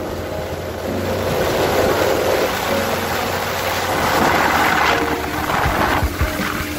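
Outboard motor running steadily as an aluminium boat travels at speed, with the hiss of wind and spray off the hull swelling and easing; a few low knocks near the end.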